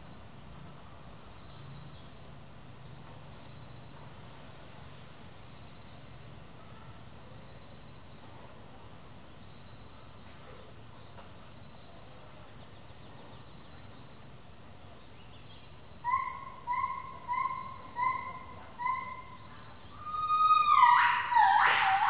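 Faint forest background with soft high chirps repeating about every half second. About sixteen seconds in, a gibbon starts calling: five or six evenly spaced short hoots, then louder notes that sweep up and drop in pitch near the end.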